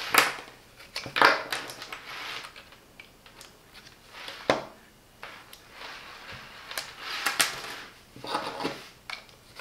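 Handling noise from a KAIWEETS HT208D clamp meter and its thermocouple probe: rustling of the probe wire and irregular plastic taps and clicks, with one sharp click about halfway through as the probe's plug is pushed into the meter's input terminals.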